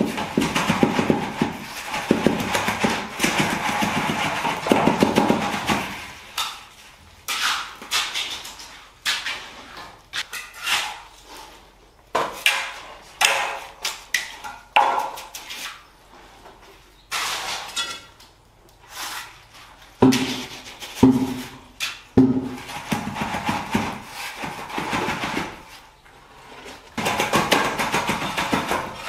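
Steel hand trowel scraping and spreading wet concrete mix: a dense run of rasping scrapes at first, then separate short strokes. Three knocks about two-thirds of the way through.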